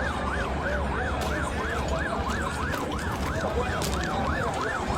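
Ambulance sirens in a fast yelp, the pitch sweeping up and down about three times a second, with a second, lower siren wailing unevenly beneath it over a steady low rumble.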